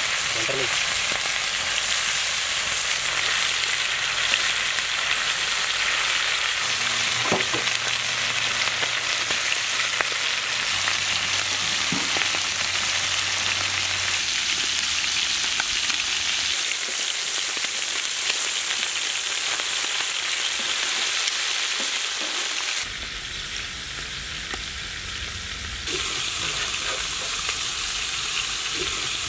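Chicken drumsticks frying and sizzling steadily in butter in a large iron wok over a wood fire, with a few light knocks. The sizzle drops for a few seconds about three-quarters through, then returns.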